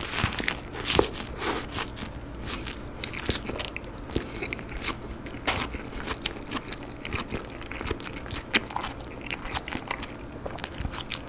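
Close-miked biting into a beef burger with lettuce, then chewing it: a run of small, irregular crunches and wet mouth clicks.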